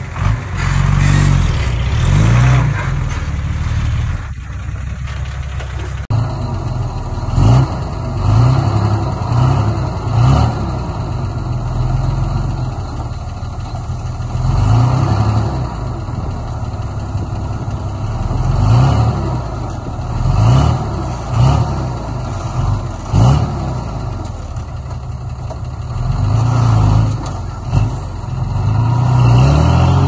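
Diesel engine of heavy earth-moving machinery working, revving up and easing off again and again, with a surge in pitch and loudness every few seconds.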